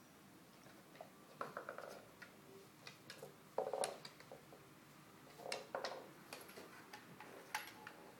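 Quiet, scattered clicking and tapping of a Cavalier King Charles Spaniel's claws on bare wooden floorboards as the dog moves about, in short flurries a couple of seconds apart.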